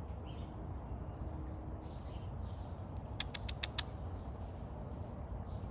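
A murai bird gives a quick series of five sharp, high chirps about three seconds in, over a steady low rumble.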